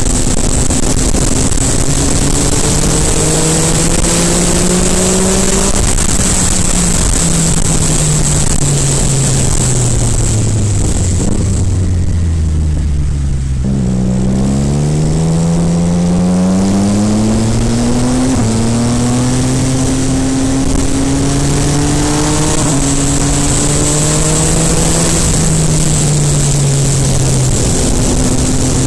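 MV Agusta Brutale 800RR's 798 cc inline-three engine running under way, its pitch rising and falling with the throttle: it climbs for the first few seconds, sinks to a low point about halfway, then climbs steeply again and rises and falls through the rest, over a steady rushing noise.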